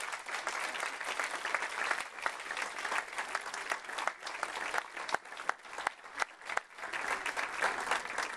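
Audience applauding, a dense patter of many clapping hands that thins briefly about six seconds in and then swells again.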